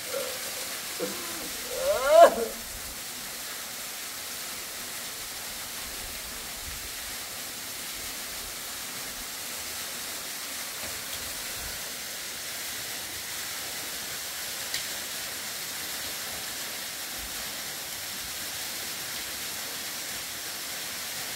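Steady, even hiss from a wood fire of embers with a kettle sitting on them, with a short rising call about two seconds in.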